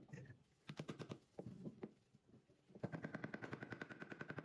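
A rapid series of sharp mechanical taps: short clusters in the first couple of seconds, then a fast, even run of about a dozen or more a second with a steady whine under it near the end.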